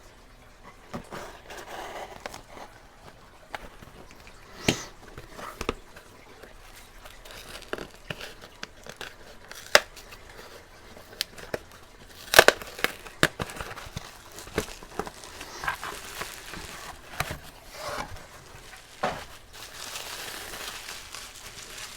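Packaging being opened and unwrapped by hand: crinkling and tearing, with scattered sharp clicks and knocks throughout and a louder cluster of clicks about halfway through.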